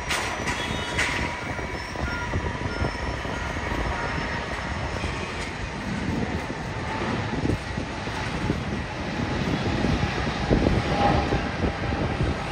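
Jet airliner engines running: a steady rumble with a thin whine over it, swelling a little near the end.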